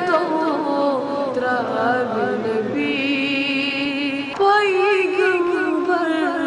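A boy's voice singing a Kashmiri naat in long, wavering melodic lines. A louder new phrase begins sharply about four seconds in.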